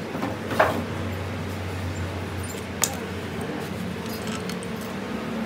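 Metal parts and tools clinking in a workshop, with a sharp metallic knock that rings briefly about half a second in and a short click near the middle, over a steady machine hum.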